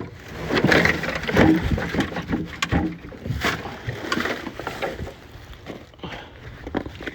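Irregular knocks, clatters and scrapes of truck bumper parts being handled and moved, loudest in the first couple of seconds.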